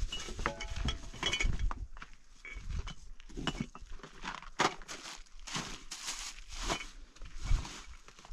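A white sack being handled and rustled by hand as it is packed and tied, in a string of short scrapes and crinkles. A few light clinks come in the first second or so.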